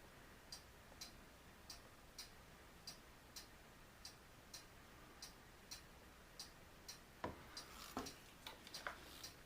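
Faint steady ticking, a little under two ticks a second, in a quiet room. A few soft knocks and taps come near the end.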